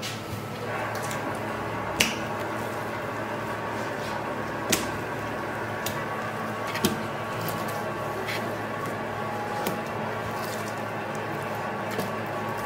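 Pieces of raw sturgeon handled and laid onto a plastic cutting board: short, sharp taps and slaps at irregular intervals, about seven of them, over a steady kitchen hum.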